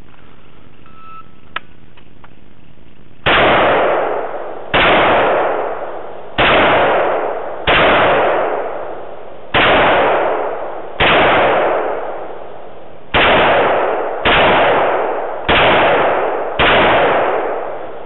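Ten rifle shots from an FN FS2000 5.56 mm bullpup, fired one at a time one to two seconds apart, starting about three seconds in; each report trails off over about a second. A faint click comes before the first shot.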